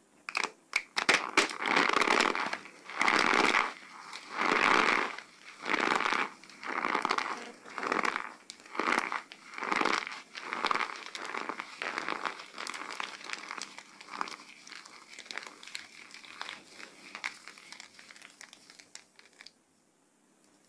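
A dry, cornstarch-coated soap box crushed and squeezed in bare hands, crunching into crumbs with about one squeeze a second. The crunches are loudest at first, grow weaker, and stop shortly before the end.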